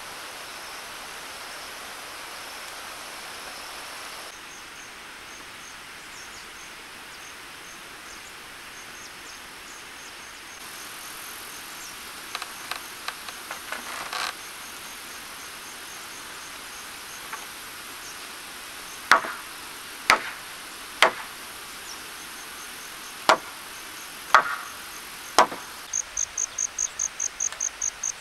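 Hammer blows on timber: six sharp strikes about a second apart, after a few lighter taps, over a steady outdoor insect hum. Near the end a cricket starts chirping rapidly.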